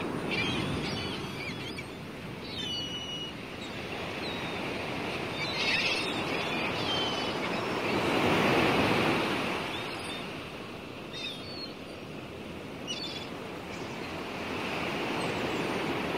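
Outdoor ambience: a steady rushing noise that swells to its loudest about eight seconds in, then eases off. A few short bird chirps come near the start and again around six seconds in.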